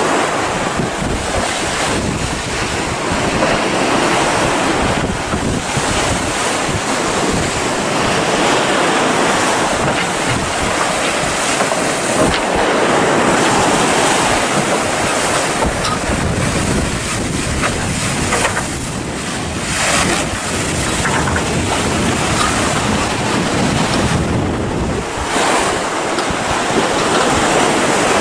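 Steady rush of rough, breaking sea waves in a harbour inlet, with wind noise on the microphone.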